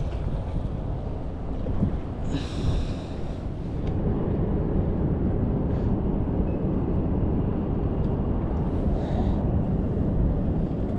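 Wind buffeting the microphone, a steady low rumble, with a brief higher rasp about two seconds in.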